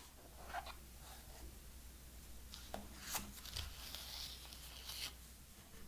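Quiet handling of an iPhone 12 mini and its white cardboard box by knit-gloved hands. There are a few soft taps and clicks, and a brief rubbing, sliding sound a little before four seconds in as the phone comes out of the box.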